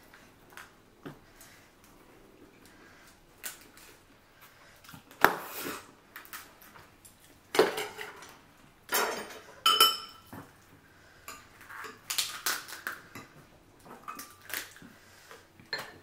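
Lobster shell being cracked and pulled apart by hand, with scattered clinks of utensils against dishes. The sharpest cracks come a little over five seconds in and near eight seconds, with a cluster of clatter around nine to thirteen seconds.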